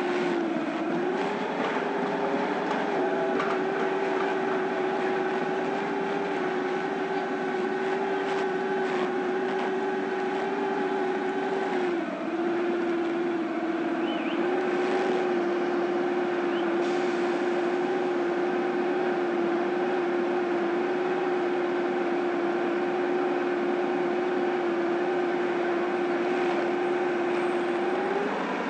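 Honda ST1100 touring motorcycle's V4 engine running at low speed in slow traffic, heard from a camera on the bike: a steady hum whose pitch dips briefly a few times.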